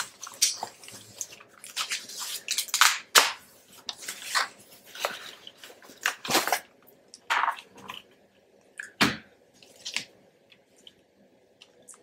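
Plastic wrapping crinkling and rustling in irregular bursts as a keyboard is slid out of its protective sleeve, with one louder knock about nine seconds in.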